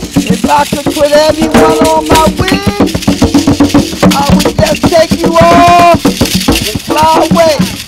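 Drum circle: djembe hand drums and shakers playing a fast, steady beat, with a voice singing short phrases over them.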